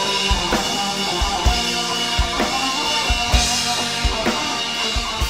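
Band music driven by a drum kit: steady bass drum beats, snare hits and cymbal wash under sustained chords from the other instruments.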